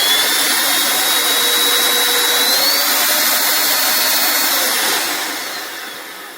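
Battery-powered 21-volt cordless vacuum cleaner motor running at speed with a high whine, which rises slightly a little past two seconds in. About five seconds in it is switched off and winds down.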